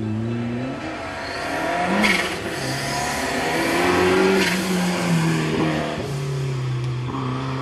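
Ford Escort MK2 RS2000 with a turbocharged Cosworth YB four-cylinder engine driven hard up a hillclimb, its engine note rising and falling as it revs through the bends and passes by. The engine is loudest about four seconds in, and a brief burst of noise comes about two seconds in.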